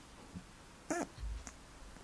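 Sleeping domestic cat snoring: a brief squeaky, nasal snort about a second in, then a low rumbling breath.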